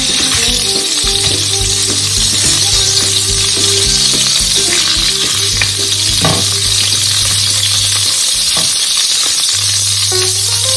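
Shrimp sizzling steadily in hot oil in a nonstick wok, with a few sharp clicks of tongs against the pan as the shrimp are lifted out.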